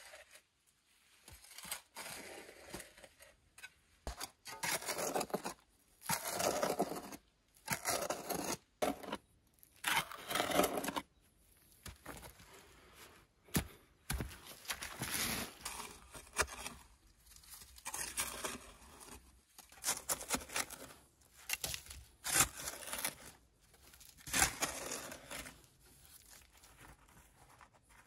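Short-handled pick digging and scraping into crumbly sandy soil: irregular scraping, crunching strokes a second or two apart, with a couple of sharp knocks about halfway through.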